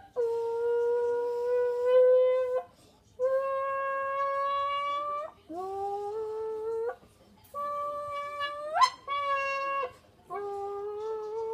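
A small bent plastic Coke bottle is blown into in about six separate held notes, each one to two seconds long. Some notes slide upward at the start, and one sweeps sharply up about nine seconds in. It is meant to imitate a Lamborghini engine revving.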